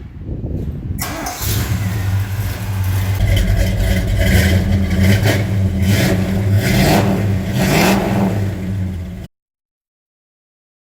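Square-body Chevy pickup's engine running through a cheap 2.5-inch exhaust with imitation Flowmaster mufflers, coming in about a second in and revving a few times. The sound cuts off abruptly near the end.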